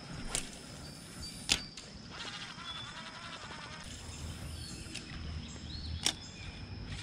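Spinning rod and reel being cast from the bank: the swish of the cast and three sharp clicks of the reel being handled, the loudest about a second and a half in.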